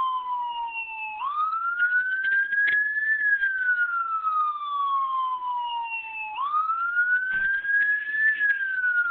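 Police-style wail siren sound effect played from a laptop: one tone that rises quickly, then falls slowly, about five seconds per cycle.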